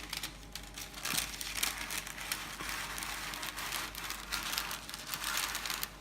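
Sheet of baking paper crinkling and rustling in irregular crackles as it is handled and pressed into a baking tray.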